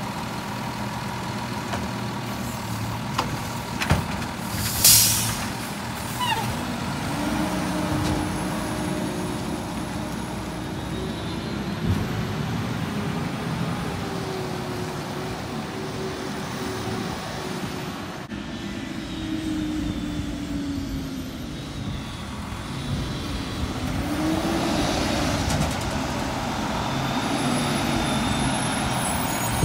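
Diesel engine of a Peterbilt garbage truck driving off, its note rising and falling as it moves through the gears. A short, sharp air-brake hiss comes about five seconds in. The engine grows louder again near the end as the truck comes back closer.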